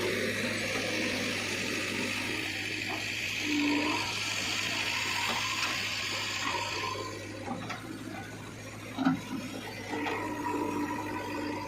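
Backhoe loader at work: a steady motor hum under a hiss of material moving, which stops about seven seconds in, followed by scattered clicks and a sharp knock about nine seconds in.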